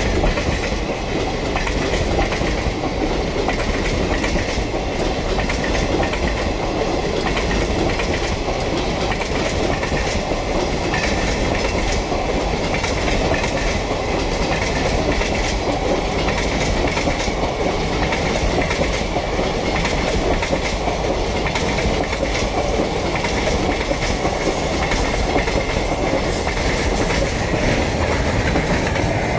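Freight train of covered NMG wagons passing close by at speed: a steady clatter of wheels over rail joints and rumble of the wagons, with the last flat wagon and brake van going by near the end.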